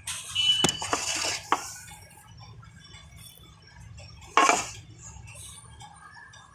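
Close-miked mouth sounds of eating wet slate-pencil paste: a quick cluster of sharp smacks and clicks in the first second and a half, then one more loud smack about four and a half seconds in.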